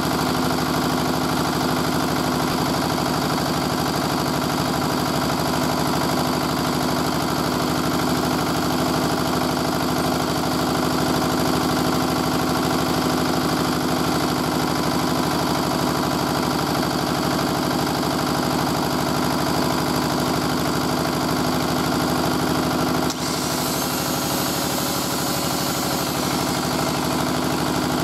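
Petter AVA1 single-cylinder diesel engine running steadily, driving a Dale Panther generator. About 23 seconds in, an angle grinder powered from the generator switches on, the engine dips briefly as it takes the load, and the grinder's high whine rises and then runs on over the engine.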